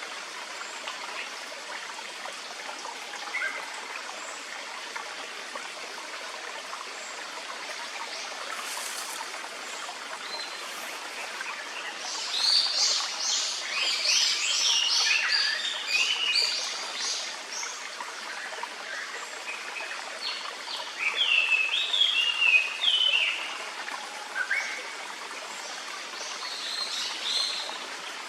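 Steady rush of a clear forest stream, with two bursts of quick, high, stepped calls from a Japanese paradise flycatcher: the first near the middle, the second a few seconds later.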